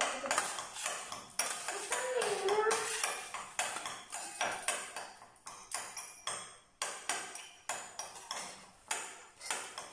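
Metal spoon clinking and tapping against small glass dessert cups, about two strikes a second, as banana and sugar are pounded and mashed in them.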